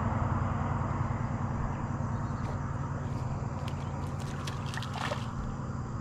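Low rumble of a car passing on the nearby road, fading away. About four to five seconds in come a few light, quick splashes and clicks at the water's surface.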